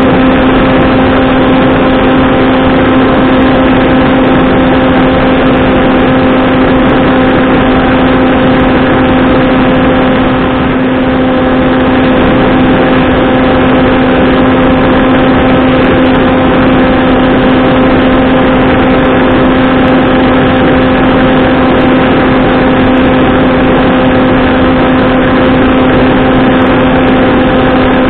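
Skywalker Falcon flying wing's electric motor and propeller running at a steady cruise throttle: a constant pitched drone over rushing wind noise, picked up by the onboard camera. The level dips briefly about ten seconds in.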